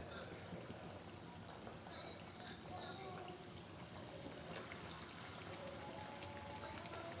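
Faint, steady sizzling of oil with fine crackles as breadcrumb-coated bread potato rolls are lowered by hand into hot oil in an iron kadhai and begin deep-frying.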